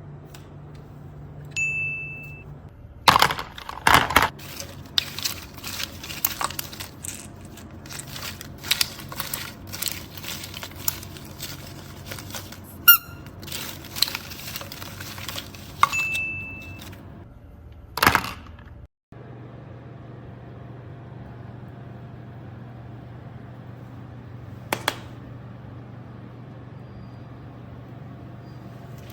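Hard objects being handled: a long run of sharp clicks and knocks, with a short high beep near the start and another partway through. After that comes a steady low hum with a single click.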